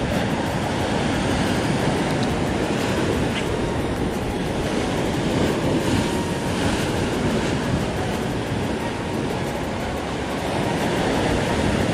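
Ocean surf breaking and washing over a rock ledge: a steady, continuous rushing noise.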